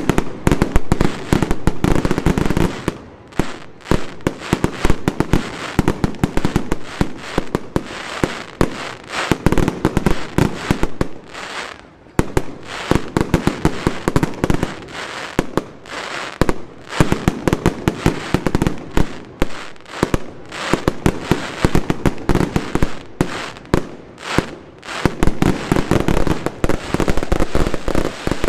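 Aerial fireworks display: a dense, continuous barrage of shells bursting, with rapid sharp bangs and cracks several times a second and only brief lulls now and then.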